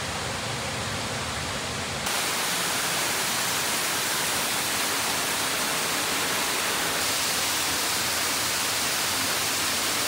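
A steady rushing noise with no distinct events. It steps louder and brighter about two seconds in.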